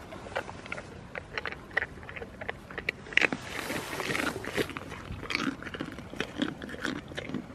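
A goat chewing hand-fed food close to the microphone: quick, irregular crunching and biting clicks, with a short breathy rush about halfway through.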